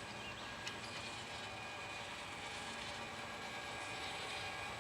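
Chair lift ride nearing its station: a steady faint hum and hiss with a few thin steady tones, and one light click about a second in.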